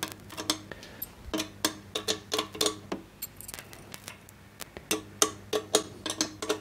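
Rapid, irregular sharp clicks and light metallic ticks, about three to four a second, from hand tools working the mirror adjustment screws of a Ritchey-Chrétien telescope during collimation. A faint low hum runs underneath.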